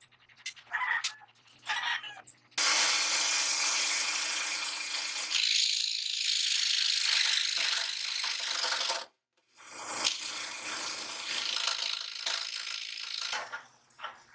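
A few clicks as a blade is fitted into the clamp of a homemade scroll saw. The saw then starts suddenly and runs with a low hum, its blade rasping harshly against a metal strip that it cuts poorly. The sound breaks off briefly, resumes, and fades near the end.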